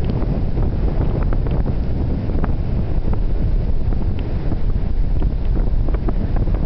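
Wind buffeting the camera's microphone: a loud, steady low rumble, with a few small crackles, over the Pacific surf breaking on the beach.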